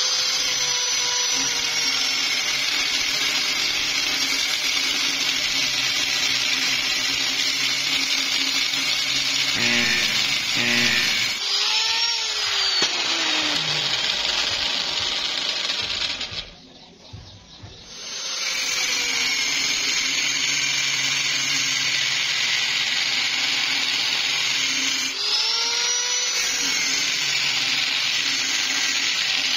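Angle grinder with a thin cut-off disc cutting through flat steel bar. The motor whine shifts in pitch a few times as the disc is pressed into the cut. Past the middle the sound drops away for about a second and a half, then the grinder winds back up and carries on cutting.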